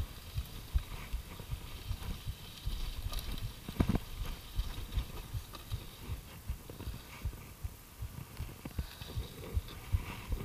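Mountain bike descending a rough dirt trail at speed: an irregular stream of low knocks and rattles as it bounces over the ground, with a harder knock about four seconds in.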